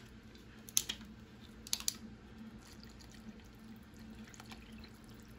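Water poured from a plastic bottle into a glass bowl of soup and gravy mix, a soft trickle, with a few sharp clicks about one and two seconds in.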